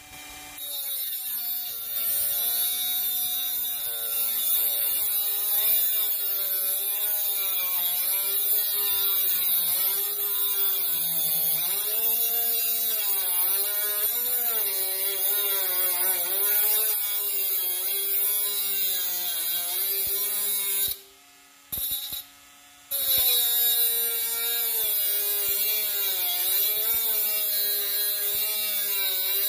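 Bosch GWS 12V-76 cordless 12-volt mini angle grinder running with its disc in contact with the work, the motor whine wavering up and down as the load changes. The sound cuts out briefly about two-thirds of the way through, then the grinder runs again.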